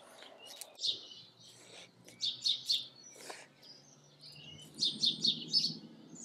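Small garden birds chirping in several short runs of quick, high notes, over a faint steady low hum.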